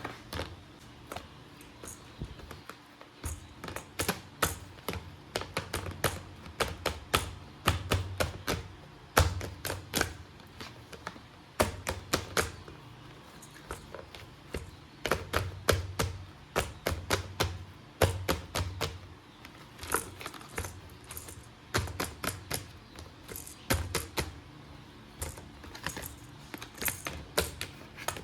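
Hard plastic toys being handled, clicking and tapping in quick, irregular clusters of sharp strikes.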